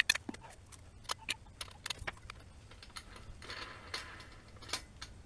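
Irregular sharp clicks and light metallic clinks, with a short scraping rustle about three and a half seconds in: a wire brush being fitted onto a cordless angle grinder by hand.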